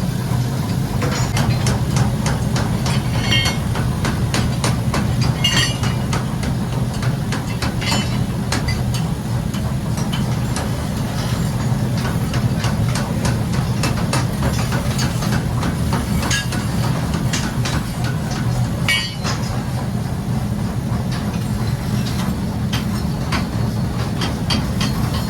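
A steady low mechanical hum runs throughout, with many irregular metallic clicks and knocks laid over it. A few of the knocks ring briefly, like metal striking metal.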